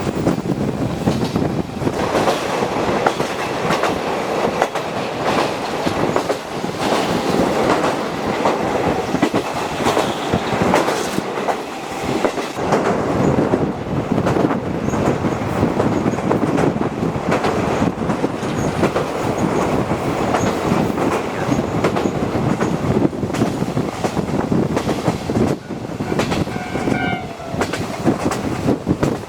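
Passenger coach of a locomotive-hauled train running along the line, heard from inside: steady rumble of the wheels with the clickety-clack of rail joints. A short pitched tone sounds near the end.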